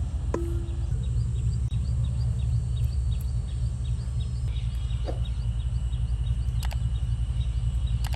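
Outdoor ambience: a steady low rumble with small birds chirping in quick, evenly spaced series, and a few light clicks.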